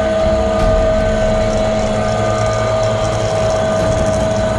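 Electric winch motor running at a steady pitch, hauling a person up a vertical shaft.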